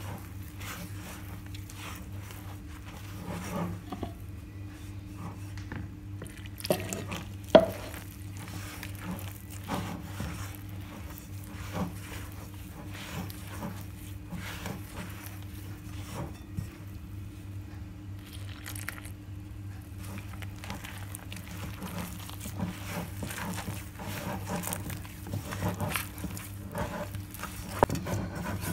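Hand mixing and squeezing soft doughnut dough in a glass bowl, the flour, butter and milk coming together: irregular squishing and patting, with small knocks against the glass, the sharpest about seven and a half seconds in. A steady low hum runs underneath.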